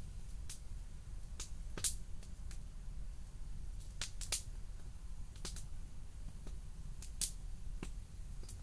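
Wood campfire crackling, with sharp pops at irregular intervals, a few louder than the rest, over a steady low rumble.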